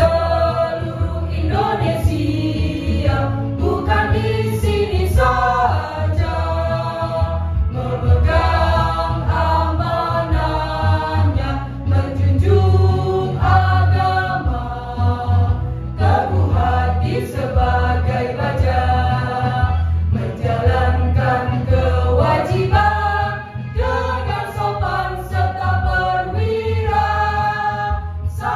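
Children's choir singing a song over a backing track with a strong, steady bass.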